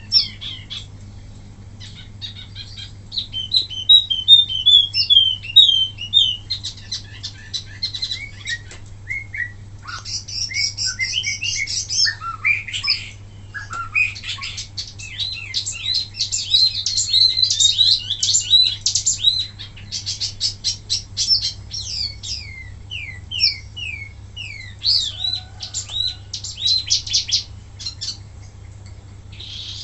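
Wambi mini songbird singing a fast, varied run of high chirps, trills and short sliding notes in rapid bursts, with brief pauses between phrases. A steady low electrical hum sits underneath.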